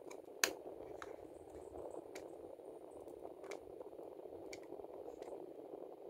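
Room air conditioner indoor unit running with a steady airflow hiss. Over it come a few light clicks, the sharpest about half a second in.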